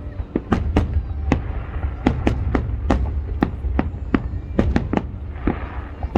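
Fireworks display going off: an irregular run of sharp bangs, about three a second, over a steady low rumble.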